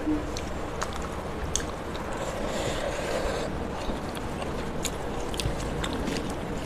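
Eating by hand: chewing with lip smacks and small clicks, and fingers working rice on a steel plate, over a steady low room hum.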